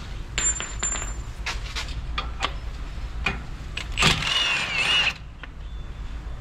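Metal clinks of a socket and tool being handled. About four seconds in, a cordless impact wrench runs for about a second on a 14 mm bolt, with a wavering whine, and stops suddenly.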